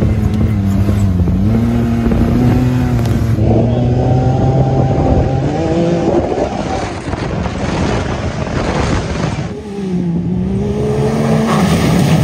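Turbocharged Can-Am Maverick X3 side-by-side engine revving up and down as it drives through sand, its pitch rising and falling with the throttle. Near the end, a rush of water spray as it blasts through a puddle.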